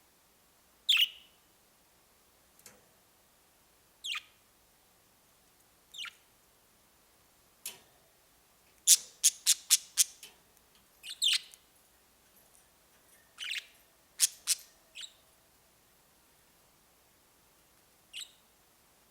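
Budgerigars chirping in short, separate calls a second or two apart, with a quick run of about five sharp chirps around nine seconds in.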